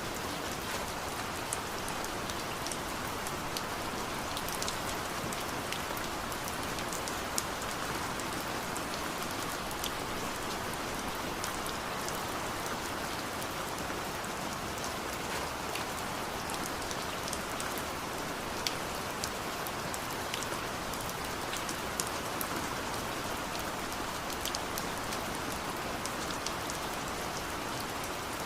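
Steady monsoon rain falling, a constant even patter with many scattered sharp drop ticks.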